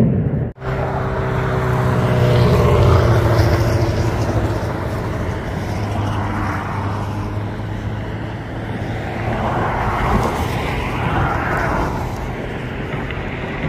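Jet noise from a U.S. Air Force Thunderbirds F-16 flying overhead: a steady rumble with a whine that slowly falls in pitch as it passes. The sound cuts out for an instant just after the start.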